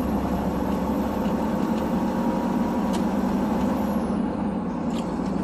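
Tractor-trailer heard from inside the cab while driving: a steady engine drone with road noise.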